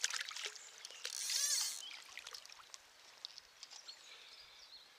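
River water splashing as a trout is released by hand and kicks away, with the loudest rushing splash about a second in, then small drips and ticks over the flow of the stream.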